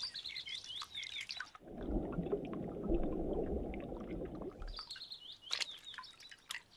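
Small birds chirping in short, quick calls. About a second and a half in they give way to a muffled, low rush of water heard underwater, and the chirping returns near five seconds in.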